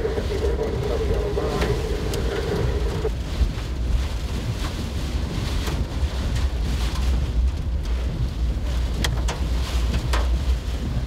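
Wind, rain and road noise heard from inside a car driving through a storm, a steady low rumble with the windshield wipers sweeping and scattered sharp ticks against the glass. A steady mid-pitched tone sounds for about the first three seconds, then stops.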